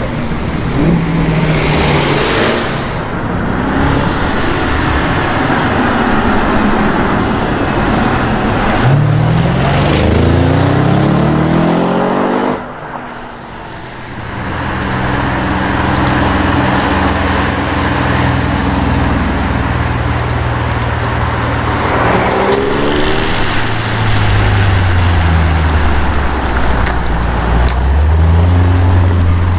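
Audi RS6 engine and exhaust running and revving up, the pitch climbing steeply about nine seconds in and again about twenty-two seconds in, with steadier running between and a brief quieter gap around thirteen seconds in.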